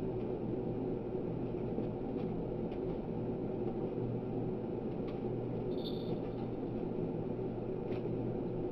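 Steady low room hum, like a fan or ventilation running, with a few faint ticks and one brief high squeak about six seconds in.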